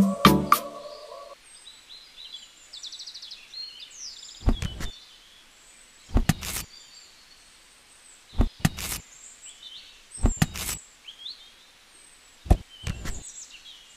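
Short, sharp knocks and thunks, singly and in pairs every couple of seconds, from a small concrete slab and a miniature plastic transformer model being handled and set down on sand, over faint birds chirping. Music cuts off about a second in.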